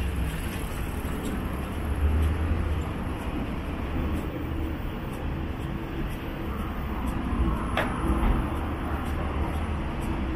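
City road traffic: motor vehicles running and passing with a steady low engine rumble. A single sharp click comes near the end.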